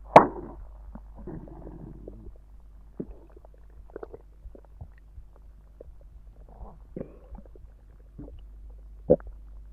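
Stomach gurgling after drinking soda. A loud sharp pop comes just after the start, then a bubbly gurgle and scattered short pops and squelches, with a second loud pop near the end, over a steady low hum.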